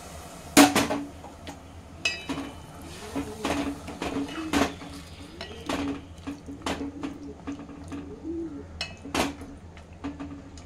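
Wooden spoon stirring mango pieces through freshly added water in a metal cooking pot, with irregular knocks and scrapes against the pot's side. The loudest knock comes about half a second in.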